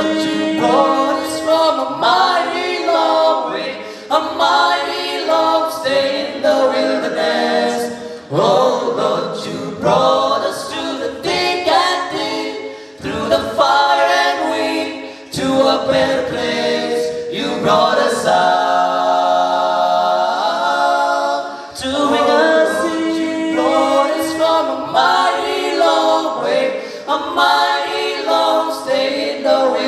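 Four-voice male a cappella group singing a gospel song in close harmony into microphones, with one long held chord about two-thirds of the way through.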